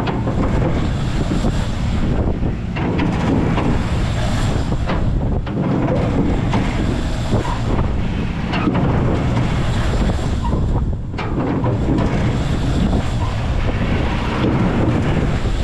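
Wind buffeting the camera microphone as the car of a Garbrick Merry Mixer spinning ride whips around, a loud low rush that swells and eases briefly every few seconds with the ride's swings.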